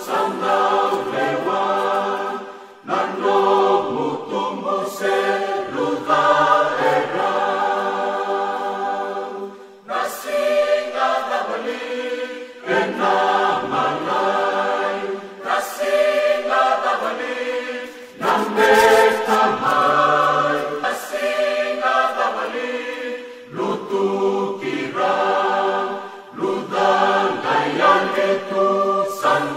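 A choir singing together in harmony, phrase after phrase, with short pauses between the lines.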